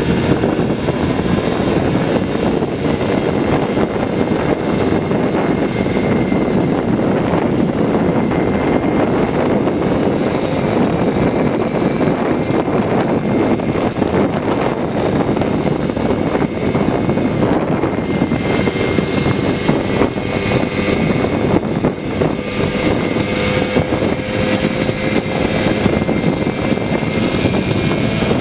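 1980 Puch Maxi moped's single-cylinder two-stroke engine running at a steady cruise while the moped is ridden, a continuous buzzing drone with no change in pace.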